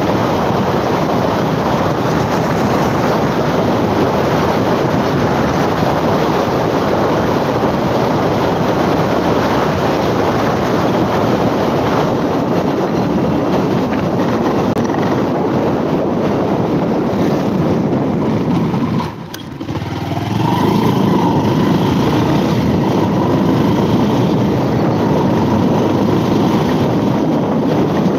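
Wind rushing and buffeting over the microphone of a phone mounted on a moving motorcycle, a loud steady rush. It drops away briefly about two-thirds of the way through, then comes back.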